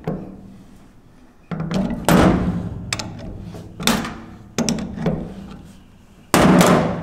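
A crescent wrench clanking against the steel adjuster sleeve of an adjustable front track bar as the sleeve is turned. About half a dozen irregular metal knocks, each ringing briefly, with the loudest about two seconds in and near the end.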